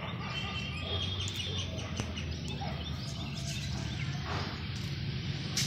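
Outdoor ambience: birds chirping in short high calls over a steady low hum and hiss.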